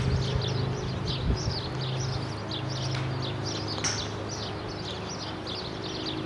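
A bird chirping continuously in a quick series of short high notes, about three or four a second, over a steady low hum. A single brief click comes about four seconds in.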